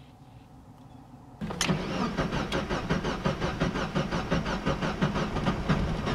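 About a second and a half in, a starter motor begins cranking the 1.8-litre four-cylinder engine of an NB Mazda Miata, a fast, even rhythm that goes on for over four seconds without the engine catching. It is a cold start on a freshly loaded standalone-ECU base map whose cold-start settings, the owner says, still need work.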